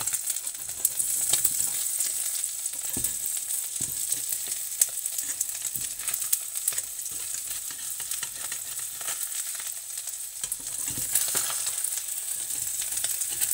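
An egg-and-sardine omelette with onions sizzling steadily in hot oil in a frying pan. Scattered short clicks and scrapes come from a slotted metal turner working the omelette in the pan.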